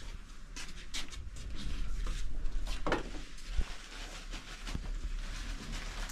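Scattered rustles, clicks and light knocks of people moving about and handling things in a small room, with a sharper knock about three and a half seconds in.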